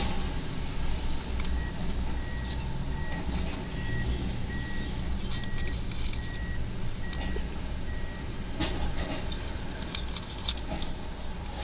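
Heavy diesel machinery running with a steady low rumble while a backup alarm beeps about nine times, a little under once a second, from a second or so in. Near the end, scattered clattering knocks of demolition rubble being handled.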